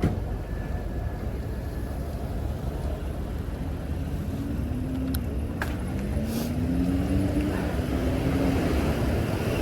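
City street traffic rumbling, with a vehicle engine rising in pitch several times as it accelerates in the second half. A couple of sharp clicks come a little past the middle.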